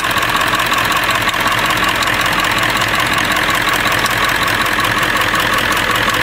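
Ford 7.3 L Power Stroke V8 diesel idling with a valve cover removed: a loud, steady engine note with fast, dense clatter from the exposed rockers and injectors. The engine is one shown as having serious blow-by.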